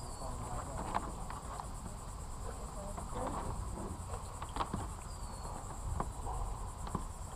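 Insects trilling steadily on one high pitch, like crickets, with a few light knocks and rustles as a rope is worked loose at the bow of a plastic kayak.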